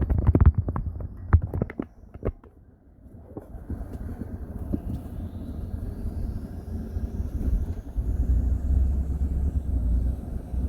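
Vehicle running with a steady low rumble that builds from about three seconds in and gets louder near the end. It is preceded by a quick run of sharp knocks in the first two seconds.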